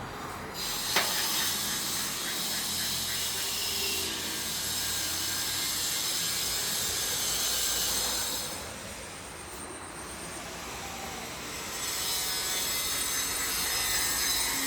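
Fishing tackle being handled: a scratchy rustling with fine, regular ratchet-like clicking. It drops away a little past the middle and picks up again near the end.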